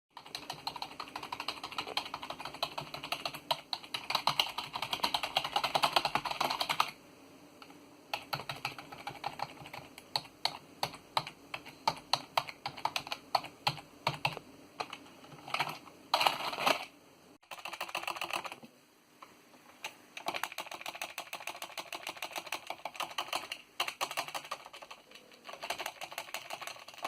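SteelSeries Apex 300 keyboard being typed on: fast, dense runs of keystrokes alternate with slower single key presses, broken by a few short pauses.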